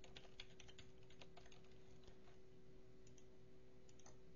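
Faint typing on a computer keyboard: a quick run of keystrokes in the first second and a half and a few more near the end, over a faint steady hum.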